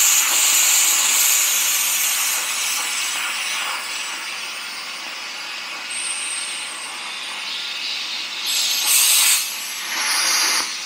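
Thermal Dynamics/ESAB Cutmaster 40 plasma cutter torch cutting steel along a straight edge: a loud, steady, high hiss that eases after about two seconds. Two short bursts of hissing follow near the end.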